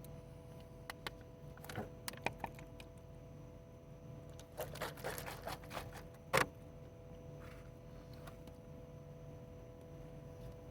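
Small objects being handled: scattered clicks, then a brief rattling clatter about five seconds in that ends in one sharp click, over a faint steady hum.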